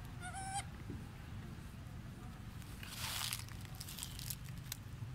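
Dry leaves rustling and crunching about three seconds in as a macaque scrabbles with its hand in the leaf litter. A short, high squeak comes just after the start.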